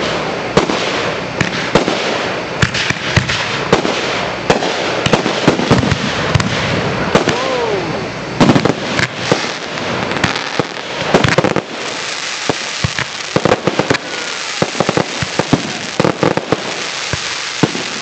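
Fireworks display: aerial shells bursting in a rapid, continuous run of sharp bangs and crackling pops, the loudest bangs about two and a half and eight and a half seconds in.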